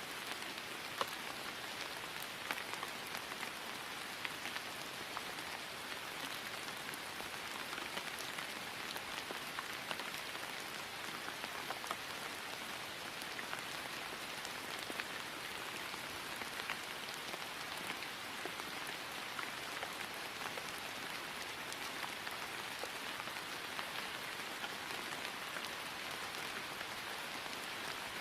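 Steady rain falling on grass, a dense even patter with scattered individual drop ticks.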